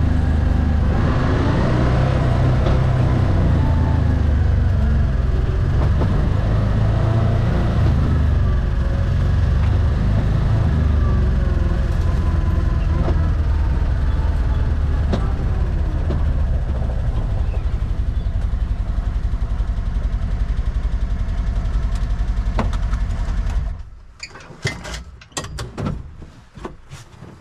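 A small vehicle's engine running steadily, stopping abruptly about 24 seconds in, followed by a few sharp knocks and clatters.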